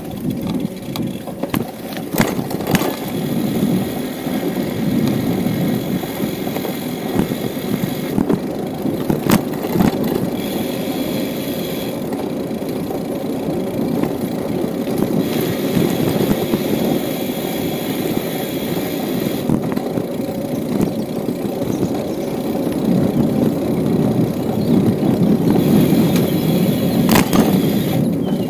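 Bicycle riding on an asphalt path: wind buffeting the camera's microphone over the rolling of the tyres, with a few sharp knocks from the bike.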